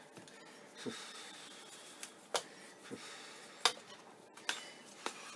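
Light plastic clicks and taps, about half a dozen scattered through, as the upturned Dell laptop's case and empty battery bay are handled and brushed out.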